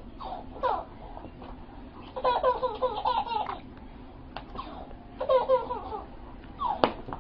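A baby laughing in two bursts of quick, pulsing giggles, the first about two seconds in and the second about five seconds in. A sharp tap comes near the end.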